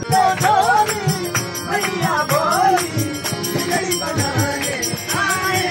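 A man singing a bhajan with harmonium and tabla accompaniment, the drum beating a steady rhythm under the melody.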